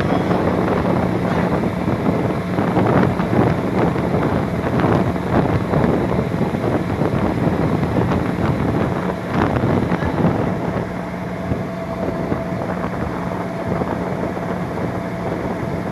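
A boat's engine running steadily with a constant hum, under noisy rushing and wind buffeting the microphone.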